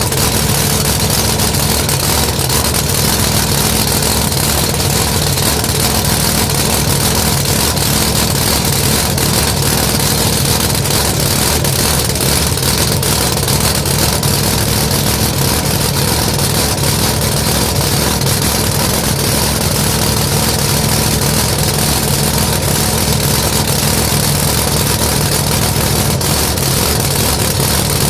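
Chevy Vega funny car's drag-racing engine idling steadily, loud and unbroken.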